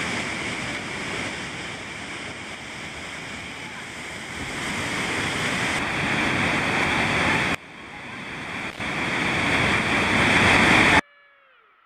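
Whitewater rapids rushing loudly: a steady wash of churning water. It drops away briefly about seven and a half seconds in, then cuts off suddenly near the end.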